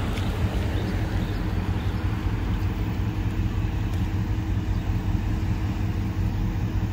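Steady engine and road noise of a car driving, heard from inside the cabin as a low rumble with an even hiss.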